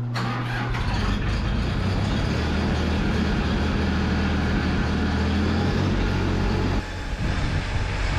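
Mahindra Max 26XLT compact tractor's diesel engine running steadily at idle. About seven seconds in, the sound drops slightly and changes abruptly.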